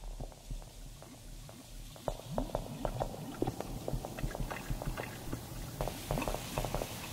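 Intro of a psybient glitch track: a bubbly, crackling texture of quick clicks and short blips over a low pulsing bass. It grows busier and louder about two seconds in.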